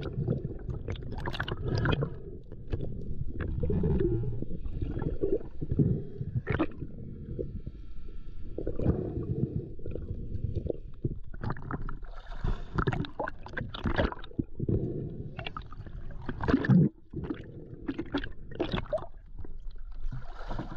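Muffled water gurgling and sloshing around a diver's camera as he swims, with sharper splashes in the second half as he reaches the surface.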